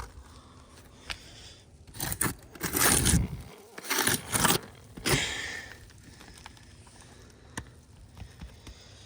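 An asphalt roof shingle being handled: crinkling and scraping in a few short bursts, the loudest about two to three seconds in, with a couple more just after and scattered small clicks.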